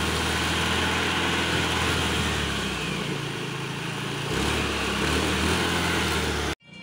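Honda Activa scooter's small single-cylinder four-stroke engine running steadily, easing off about two and a half seconds in and picking up again a couple of seconds later. It cuts off suddenly near the end.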